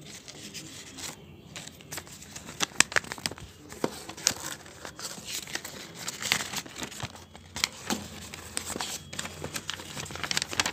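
Paper and taped cardboard packaging crinkling and rustling as a parcel is handled and unwrapped by hand, with irregular sharp crackles.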